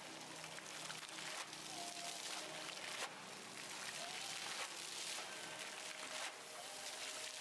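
Fountain jets spraying and splashing into a shallow basin: a steady hiss of falling water that swells and drops abruptly several times as the pump-driven jets change height.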